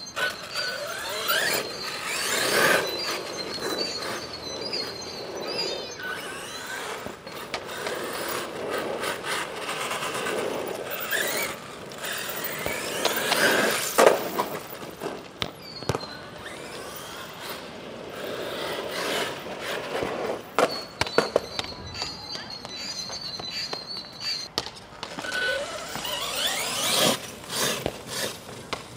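The brushless motor of an HPI Savage Flux RC monster truck whines up and down in pitch as the truck accelerates and slows in repeated runs, with the tyres squealing and scuffing on the surface.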